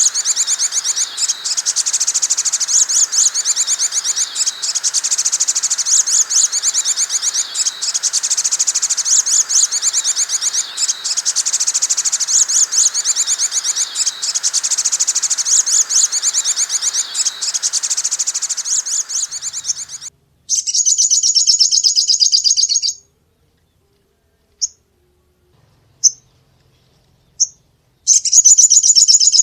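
Sogok ontong bird calling: a rapid, high-pitched stream of repeated chirps that runs on for about twenty seconds and then stops abruptly. After that come a short burst of the same chirping, three single chirps spaced out, and a further burst near the end.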